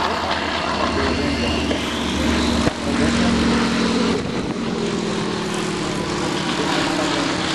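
WWII warbird's radial piston engine and propeller droning in flight overhead, the pitch slowly falling as it passes. A single sharp click comes about a third of the way in.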